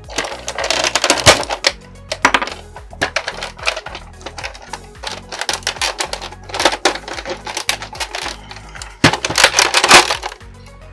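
Irregular hard plastic clicks and knocks as a Nerf Longshot blaster's shell and internal parts are handled and pried apart, over background music.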